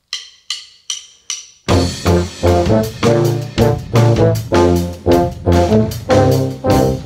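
Drumsticks clicked together four times as a count-in, then a brass band of euphonium, horns and tuba comes in with a drum kit, playing an upbeat tune with a steady beat.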